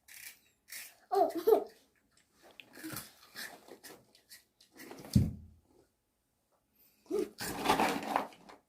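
Children giggling and making short wordless vocal sounds in a small room, with a low thump about five seconds in and a louder burst of laughter-like noise near the end.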